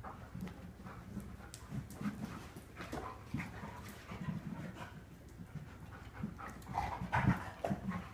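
A dog breathing heavily: irregular panting and snuffling breaths, loudest about seven seconds in.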